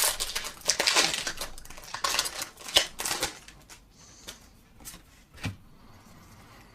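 Foil Pokémon booster pack wrapper being crinkled open: dense crackling for the first three and a half seconds or so, then a few scattered, quieter clicks and taps as the cards are handled.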